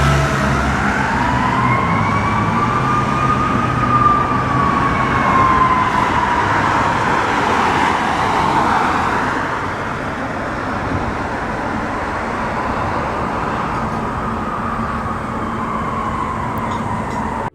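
Fire truck siren in a slow wail: the pitch dips at the start, climbs to a peak about four seconds in, then slowly falls away, over the rumble of the truck and road traffic.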